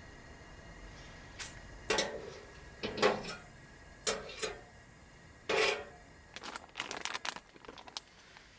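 Metal knife and spatula knocking and scraping against a cast iron frying pan as lard is put in, a handful of sharp clacks about a second apart. Near the end comes a quicker run of small clicks and crinkles as a plastic bag is handled.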